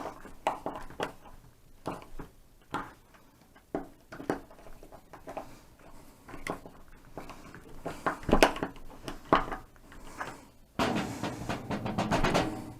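Screws being tightened into a smart deadbolt's mounting plate with a screwdriver: irregular small clicks, knocks and scrapes of metal and plastic, with a louder continuous stretch near the end.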